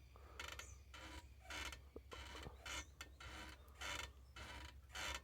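Faint, repeated creaking from a Honda CG motorcycle's swingarm, about two creaks a second, with the engine off. The owner suspects the swingarm was damaged by jumps and potholes and may only need tightening.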